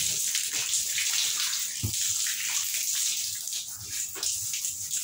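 Running water, a steady hiss that thins out over the last couple of seconds, with a dull knock about two seconds in.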